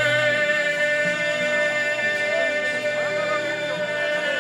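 Live Congolese rumba band music, with a singer holding one long note, wavering at first and then steady, over the bass line.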